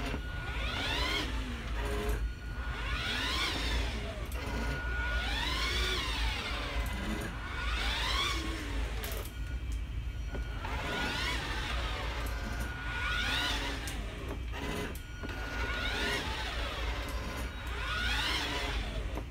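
Kids' 12-volt electric ride-on toy car (BMW 507 licence) running, with a pitched whine that rises and then falls about every two and a half seconds over a steady low hum.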